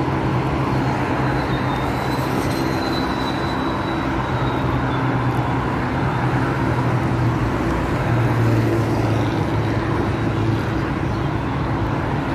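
Steady road traffic noise with a motor vehicle's engine hum running at an even pitch, and a faint high whine about two seconds in.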